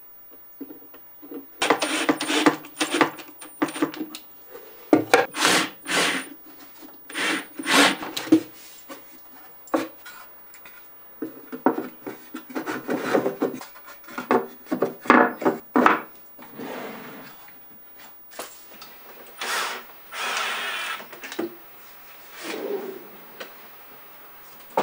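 A cordless drill-driver drives screws through the drawer boxes into the MDF drawer faces in several short bursts. Between the bursts, wooden drawers rub and knock as they are fitted and slid.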